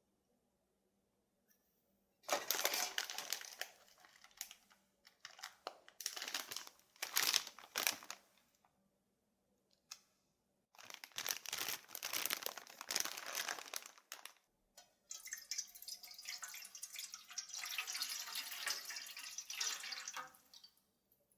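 Plastic packaging crinkling and tearing in four separate handling bouts, as an instant ramyun packet is opened and its contents taken out.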